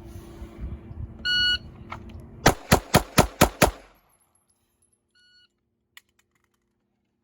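A shot timer's start beep, then about a second later a string of six pistol shots fired fast, roughly four a second, from a handgun drawn from concealed carry. A fainter short beep follows near the end.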